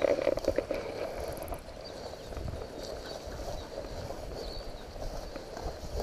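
A person walking through tall dry grass: footsteps with stems swishing and rustling, busiest in the first second and a half, then softer. A few faint, short, high chirps sound over it.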